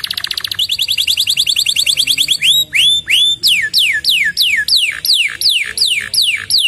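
Canary singing: a very fast, high trill for about two seconds, a few short rising notes, then a steady run of downward-sweeping whistled notes, about three a second.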